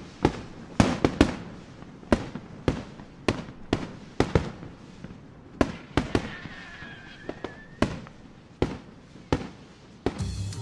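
Aerial fireworks shells bursting in a rapid, irregular series of sharp bangs, about two a second, each with a short echo. A faint high whistle runs for about two seconds midway, and music comes in near the end.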